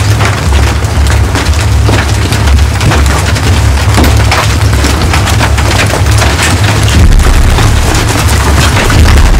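Large hailstones pelting down in a violent storm: a dense, irregular clatter of hard ice impacts over a deep, steady rumble, all very loud.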